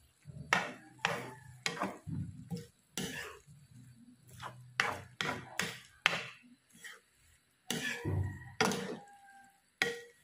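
A spatula knocks and scrapes against a nonstick wok while noodles and vegetables are tossed, in irregular knocks about two a second.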